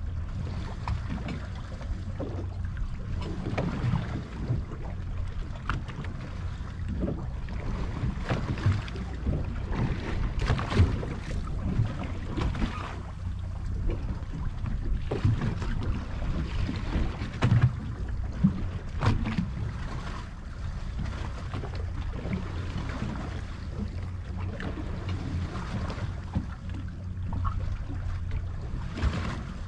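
Waves slapping against the hull of a drifting boat, with wind on the microphone, a steady low rumble and scattered irregular knocks.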